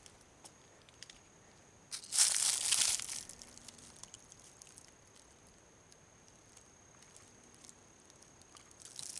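Faint background with a thin steady high whine, broken by a brief loud rustling noise about two seconds in that lasts about a second, and a few small clicks.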